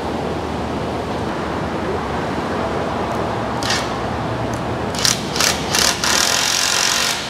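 Cordless power tool driving a bolt into a steel bumper bracket: one short burst, then three quick blips, then a steady run of just over a second near the end. A steady hiss lies underneath.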